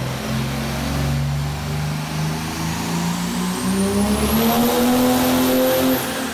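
Turbocharged diesel engine of a classic Dodge Charger making a full-throttle pull on a chassis dyno, its pitch climbing steadily with the revs as black smoke pours out. A high whine climbs with it and holds, and the throttle is let off about six seconds in.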